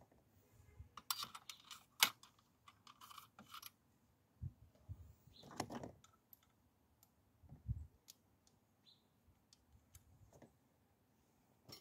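Hand tools working on parts in a car engine bay: scattered metallic clicks and rattles, thickest in the first few seconds, with a scrape and a few dull knocks.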